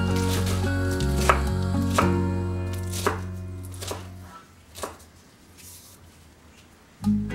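Kitchen knife chopping shredded lettuce against a wooden cutting board: separate sharp strikes about a second apart. Background music plays under the first half, stops, and comes back near the end.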